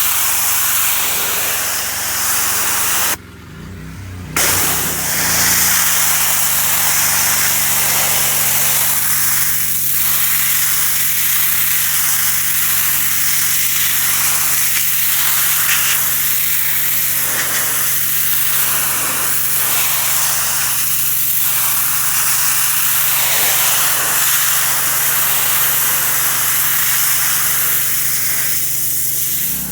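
Pressure washer spraying: a loud hiss of the water jet over the steady hum of the machine. About three seconds in the spray stops for about a second while the machine keeps running, then starts again.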